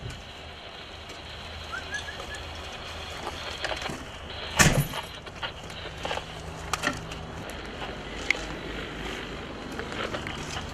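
A vehicle engine idling with a low, steady hum, under scattered clicks and knocks. One loud knock comes about halfway through.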